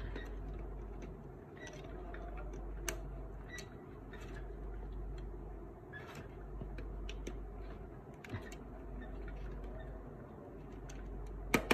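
Small plastic clicks and ticks of wire connectors being handled and pushed into their sockets on a Canon LBP 6000 printer's power board. A sharper click near the end as a connector locks into place.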